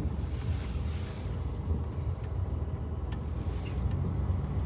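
Heavy truck's diesel engine running with a steady low rumble as the truck pulls out slowly, with a brief hiss about a second in and a few sharp clicks near the end.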